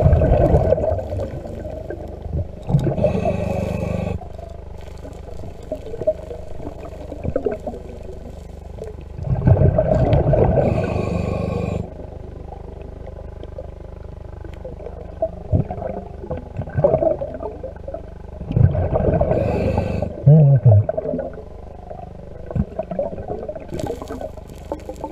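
Underwater, a diver's exhaled breath bubbles out in loud bursts of a second or two, about every eight seconds, with quieter crackling and water noise between.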